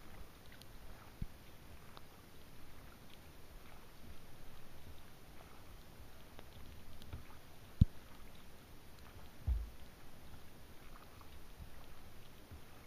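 Light rain ticking on a kayak's deck and the lake, scattered single drops over a faint hiss, with a few dull knocks; the sharpest and loudest comes about eight seconds in, another shortly after.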